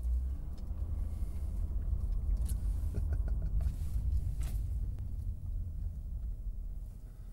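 Steady low rumble of a car on the move, heard from inside the cabin, with a few faint light clicks.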